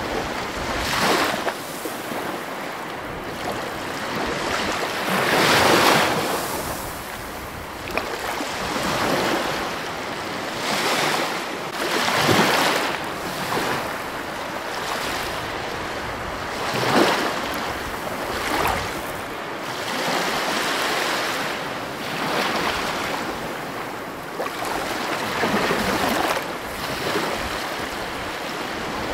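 Ocean surf: waves breaking and washing in, swelling louder every few seconds and easing between.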